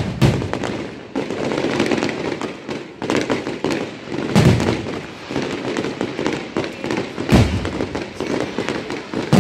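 Aerial fireworks: heavy booms of shells bursting a few seconds apart, over continuous dense crackling from crackle effects.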